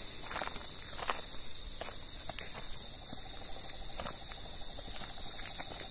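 Night insects chirping in a steady, high, evenly pulsing chorus, with a few scattered soft clicks.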